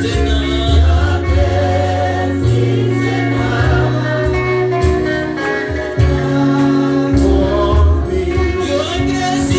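Gospel praise and worship song sung by a group of voices with a band, over a steady bass line whose notes change every second or so.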